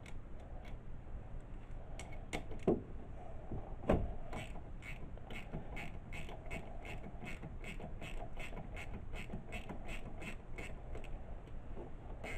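Hand ratchet clicking steadily, about three to four clicks a second, as it undoes a rocker cover bolt on a GY6 50cc scooter engine. A few sharp knocks and clicks come first, as the tool is fitted and the bolt is broken loose.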